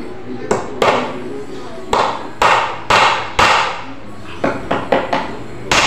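Claw hammer driving nails into the corner joint of a wooden door jamb: about a dozen sharp blows, heavy strikes roughly every half second in the first half, then a quicker run of lighter taps near the end.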